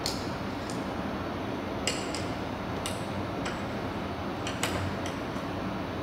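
Small metal clicks and taps of camera-cage parts being handled and fitted together: about nine sharp ticks at irregular intervals over a steady background hiss.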